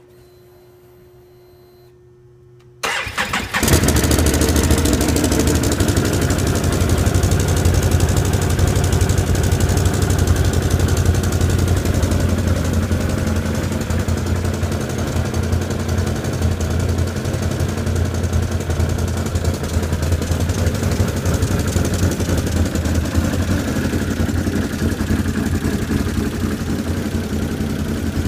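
Can-Am Outlander 800R ATV's Rotax V-twin engine through its stock exhaust, starting about three seconds in and then idling steadily.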